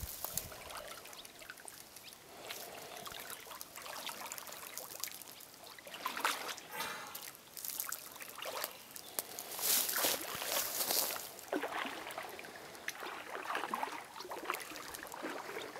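Shallow water splashing and trickling in irregular bouts, stirred up by a snorkeler swimming through a flooded channel.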